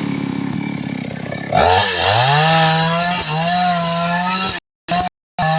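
Chainsaw cutting into a sengon tree: the engine slows and falls in pitch, then revs back up sharply about a second and a half in and holds a steady pitch with small wobbles as it cuts. The sound cuts out completely twice, briefly, near the end.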